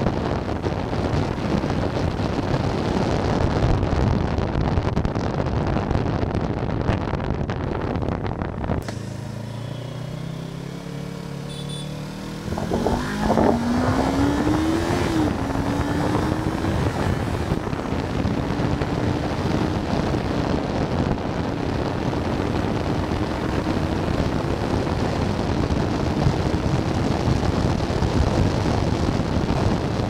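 Wind noise buffeting the microphone of a Yamaha YZF-R3 at speed, over its 321 cc parallel-twin engine. About nine seconds in the wind drops away suddenly and the engine slows towards idle. Then it revs up with rising pitch, drops as it shifts up a gear about two seconds later, and keeps climbing as the wind noise builds again.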